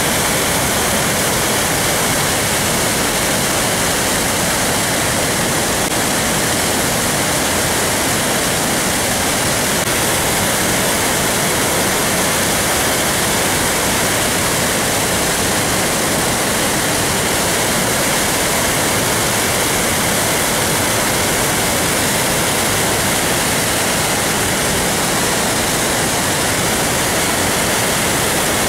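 Loud, steady rush of water pouring through the open crest gates of a dam spillway as floodwater is released from a full reservoir.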